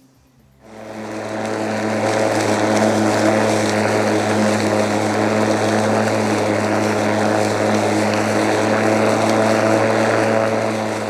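Greenworks G40LM41K2X 40V cordless lawn mower running as it is pushed across the lawn: its electric motor and spinning blade make a steady hum over a whirring rush. The sound comes in about a second in and holds steady from then on.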